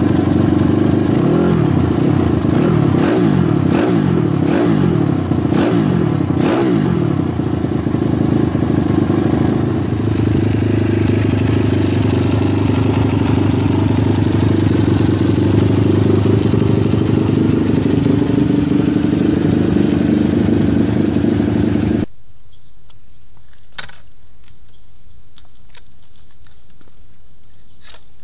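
Custom Honda Monkey mini-bike's single-cylinder four-stroke engine revved in a series of quick blips, rising and falling, then held at a steady speed. The engine sound cuts off abruptly about 22 seconds in, leaving a much quieter stretch with a single click.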